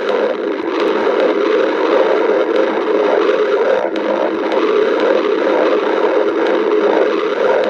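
A person's stomach growling: a continuous, rough, gurgling rumble with no break.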